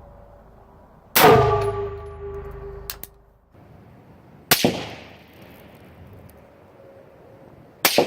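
Three shots from a 10.5-inch AR-15 pistol, spaced about three seconds apart, the last a quick double. The first is followed by a steel target ringing for about two seconds. The rifle is cycling without ejection failures now that an O-ring has been fitted to the extractor.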